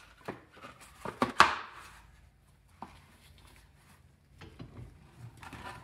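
Wooden vise jaw pads and a cast copper ingot knocking and clattering as they are set into a steel bench vise, the loudest knock about a second and a half in. Lighter handling knocks follow near the end.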